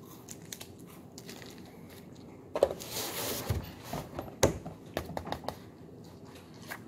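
Packaging crinkling in a short rustling burst, followed by a few scattered sharp clicks of things being handled.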